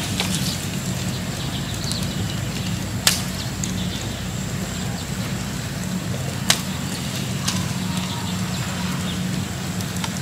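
Charcoal fire crackling under birds roasting on a wooden spit, with two sharp pops a few seconds apart over a steady low rumble.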